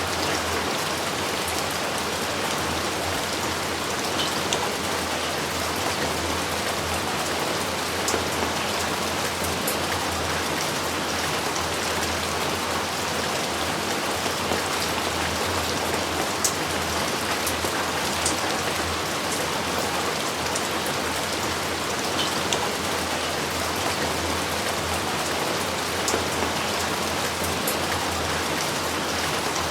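Steady rain falling, an even hiss with scattered sharper drop ticks now and then.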